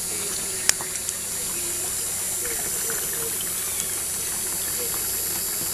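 Pump-fed water running steadily over ribbed sluice matting in a small washer mat, washing black-sand concentrates out of the matting. A sharp click just under a second in, and a fainter one soon after.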